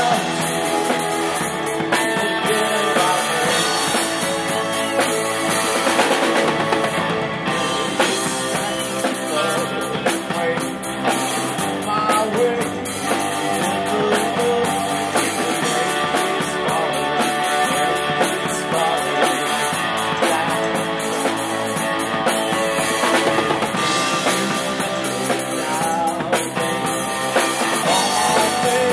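Live rock band playing a song through the PA, a drum kit keeping a steady beat under guitars and voice.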